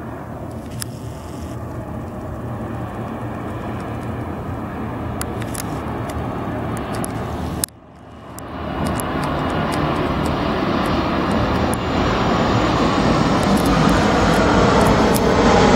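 Engines of an arriving airliner, a steady rushing drone growing louder as it comes in to land. It cuts off abruptly about halfway through, and then the engines of another arrival build steadily louder.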